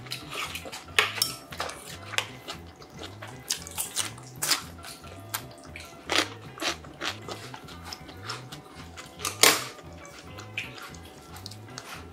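Chopsticks and a spoon clicking and scraping against a metal bowl of bibimbap while it is mixed and eaten, in many sharp clinks. The loudest clinks come about a second in and about nine and a half seconds in. Soft background music with a steady low beat runs underneath.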